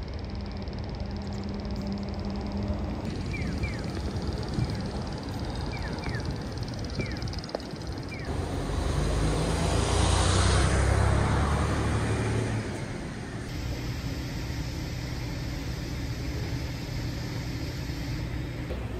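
Street ambience with a car driving past, swelling and fading about halfway through, and a few short bird chirps a few seconds before it.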